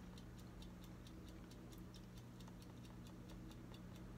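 A timer ticking faintly with quick, even ticks, several a second, over a steady low hum.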